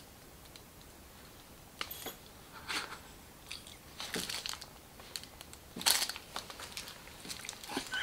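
Plastic food packaging crinkling in hands, a few short scattered rustles over a quiet room.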